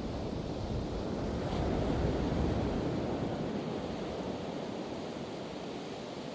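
Pacific Ocean surf washing on the beach, a steady low rush that swells to a peak about two seconds in and slowly eases, with some wind on the microphone.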